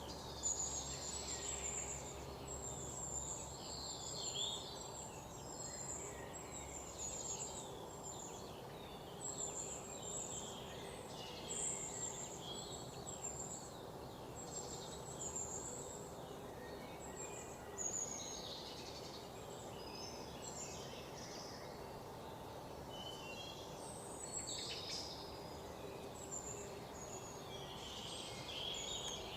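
Many small birds chirping and twittering in quick, overlapping high calls, over a steady background hum.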